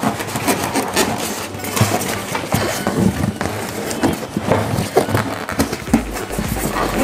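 Hands working a polystyrene foam insert loose inside a cardboard box: irregular scraping and rubbing of foam against cardboard, with small knocks.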